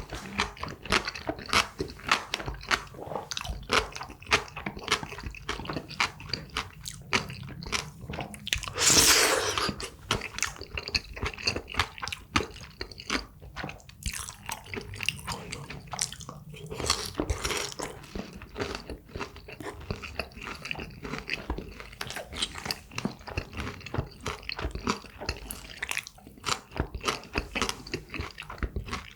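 A person chewing and crunching jjajangmyeon noodles and crispy fried tangsuyuk pork, in quick irregular crunches, with one louder, longer sound about nine seconds in.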